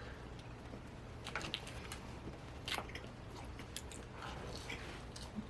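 Faint, close-up chewing of food, with a few soft mouth clicks and smacks scattered through.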